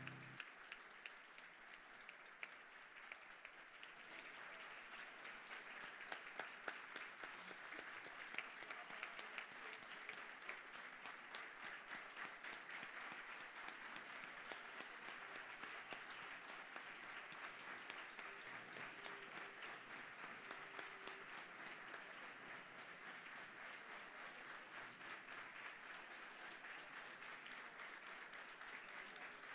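A large seated audience applauding, a dense patter of many hands clapping that builds over the first few seconds and then holds steady.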